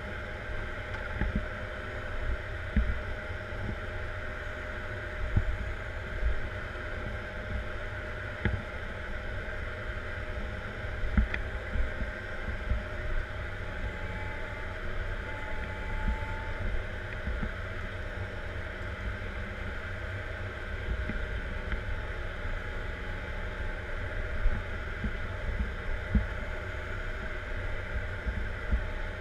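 Caterpillar 140M Series 2 motor grader's diesel engine running steadily under working load, heard from inside the cab, with a deep rumble and occasional knocks.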